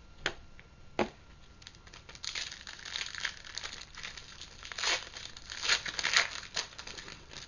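Wrapper of a hockey trading-card pack being torn open and crinkled: two sharp clicks near the start, then irregular bursts of crackling and crumpling.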